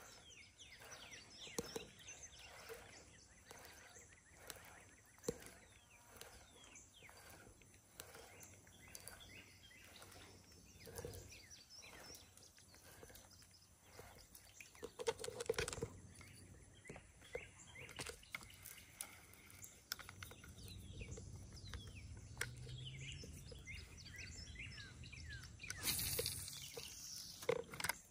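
Quiet outdoor ambience with many faint, short bird chirps throughout. A few soft knocks are spread through it, and a brief louder rush of noise comes near the end.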